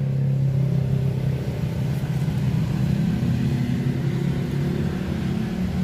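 A 1984 Toyota Corolla GL's four-cylinder engine idling steadily, a constant low hum heard from inside the cabin.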